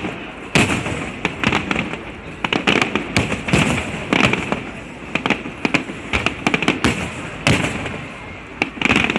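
Aerial fireworks display: a continuous series of bangs, about one loud one a second, with lighter crackling between, each trailing off in an echo.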